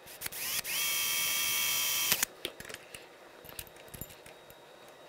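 Hand-held power drill boring a small hole in the finned aluminium housing of a voltage regulator held in a vise. The motor whines up to speed, runs steadily for about a second and a half, then stops suddenly. A few light clicks and taps of the part being handled follow.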